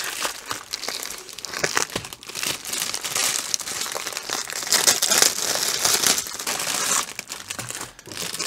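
Clear plastic wrapping crinkling loudly as rolled diamond-painting canvases are pulled out of it by hand: a continuous run of sharp crinkles and crackles, easing for a moment near the end.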